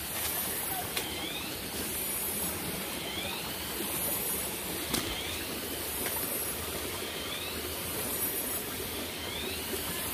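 Steady rush of a forest stream. Over it, a bird's rising call repeats about every two seconds and high insect trilling pulses. One sharp click comes about five seconds in.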